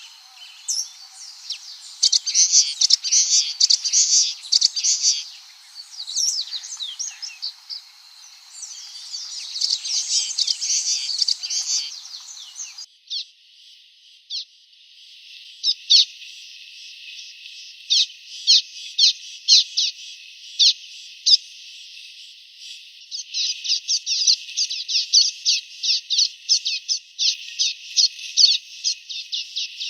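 Common waxbills chirping, a busy twitter of high, thin notes. About 13 seconds in the recording changes abruptly to a run of sharp single chirps, which come faster and closer together near the end.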